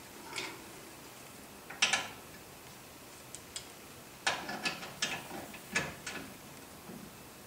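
Hand tools clicking and clanking on metal as the brake caliper's mounting bolts are worked: scattered sharp metallic clicks, the loudest about two seconds in, then a quick run of them between about four and six seconds in.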